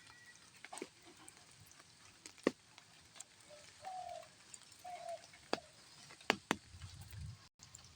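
A dove cooing: two short low coos about four and five seconds in, with a few sharp clicks scattered around them.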